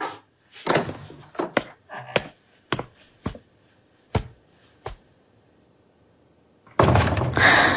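Footsteps on a floor: a run of soft, irregular knocks with a light metallic clink among them. Background music swells in near the end.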